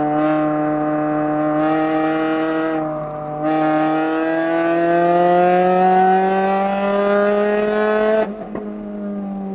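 Four-cylinder engine of a track-prepared Mini Cooper, heard from inside the stripped cabin while lapping a circuit. The note holds steady, breaks briefly about three seconds in at a gear change, then climbs steadily as the car accelerates through the gear. Near the end the throttle closes and the engine note drops suddenly and falls away.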